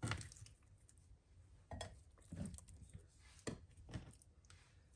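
Quiet, scattered knocks and taps, about five in all, as pieces of seasoned pork neck bone are set into a slow cooker's crock on top of the potatoes.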